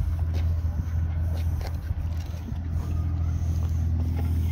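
An engine running steadily, a low even hum, with a few light clicks and taps over it.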